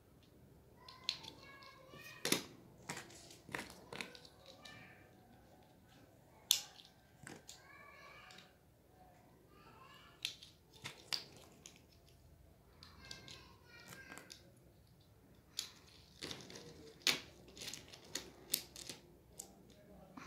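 Plastic toy building blocks clicking and snapping together as they are fitted by hand, irregular sharp clicks with a few louder snaps spread through.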